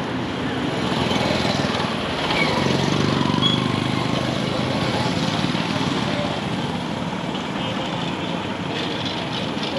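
Road traffic: a motor vehicle engine running close by, getting louder for a few seconds in the middle, over steady street noise.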